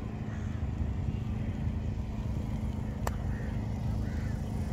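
Steady low engine drone with a constant hum, and one sharp click about three seconds in.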